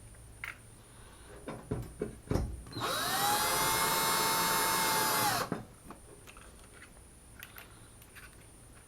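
Drill-driver on a low clutch setting driving a screw into a drywall anchor. The motor spins up with a rising whine, runs steadily for about two and a half seconds, then stops. A few light knocks and clicks come just before it.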